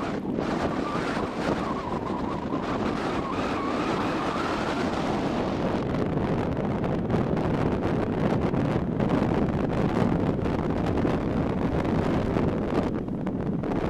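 Wind buffeting the microphone in gusts, a steady rushing noise. A faint wavering whistle sounds through the first few seconds.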